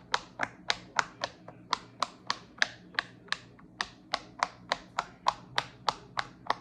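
Silicone pop-it fidget toy, its bubbles pressed one after another on the loud side, each popping with a sharp click, about four a second in a steady run.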